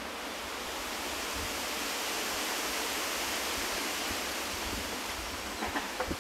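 A steady, even rushing noise that swells slightly through the middle and eases off toward the end, with a few faint ticks near the end.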